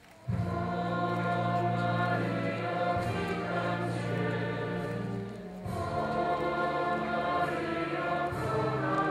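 Choir singing with sustained low accompaniment, coming in abruptly just after the start.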